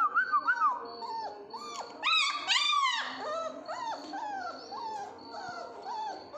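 Mudhol hound puppies whining: a run of short pitched whines that rise and fall, several a second. The loudest, highest whines come about two seconds in, then softer ones follow.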